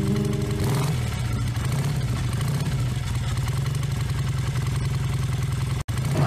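Motor tricycle's motorcycle engine running steadily with a low rumble.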